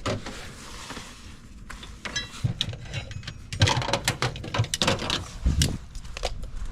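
Footsteps with irregular knocks and rattles of equipment being handled, and a brief high squeak about two seconds in.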